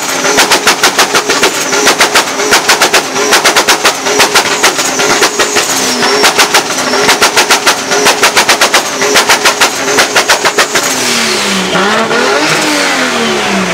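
Toyota Supra holding a 2-step launch-control limiter: a rapid string of loud exhaust bangs, several a second, pulsing in bursts, as the ignition cut makes the exhaust pop and shoot flames. About eleven seconds in the banging stops and the engine note slides up and down in pitch.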